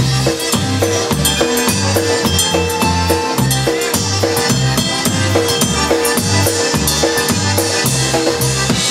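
Live polka band playing: piano accordion and concertina over electric bass and a drum kit, with the bass keeping a steady, even oom-pah beat.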